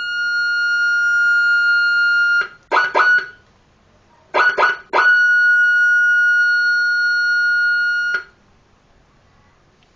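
Seven-tone electronic siren module sounding a steady high-pitched tone that cuts off a couple of seconds in. It follows with two sets of three quick beeps about a second apart, then another long steady tone that stops short, well before the end.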